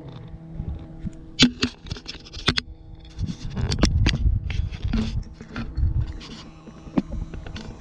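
Handling noise close to the microphone on a small fishing boat: a string of sharp knocks and scrapes, with a low rumbling in the middle, over a faint steady hum.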